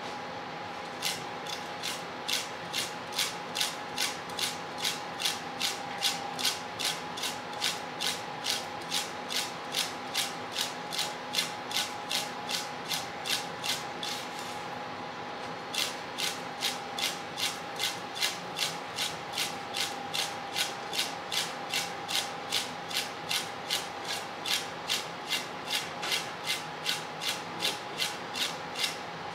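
A heavy Japanese kitchen knife is cutting a fish fillet on a cutting board in quick, even, crunchy strokes, about three a second. It pauses once, briefly, about halfway through, then carries on at the same pace.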